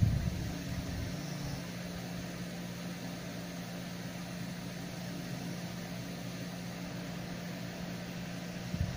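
Steady low machine hum with a faint fan-like hiss, with a dull low bump at the start and another near the end.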